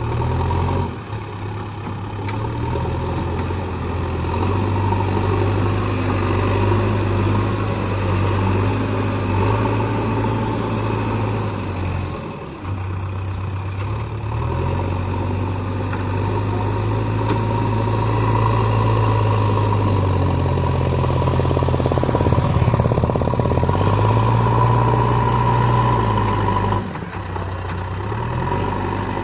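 JCB backhoe loader's diesel engine running under load, its note dropping and rising again and again as the hydraulics are worked, with a steady high whine throughout. The machine is being load-tested after a repair.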